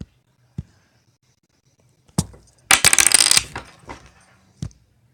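Several sharp single clicks of small hard objects being handled, with a brief rattling clatter, like small hard pieces tumbling onto a hard surface, about three seconds in.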